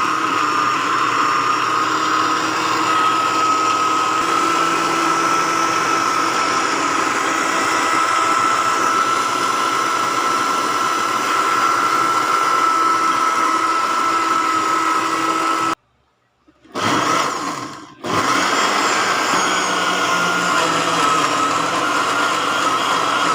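Electric blender running, blending oregano leaves in water, with a steady motor whine. About two-thirds of the way through it stops, gives a short burst that dies away, then starts again and runs on.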